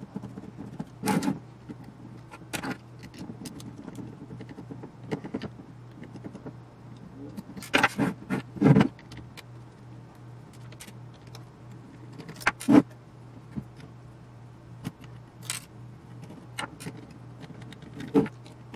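Small metal parts of an avionics chassis being handled and unscrewed: a screwdriver on steel screws and a module being worked loose, giving scattered metallic clicks, clinks and knocks. A cluster of louder knocks comes about eight seconds in, another about twelve and a half seconds in, and one near the end.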